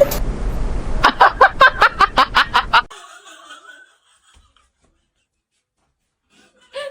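A person laughing in a quick run of about ten short bursts, then stopping.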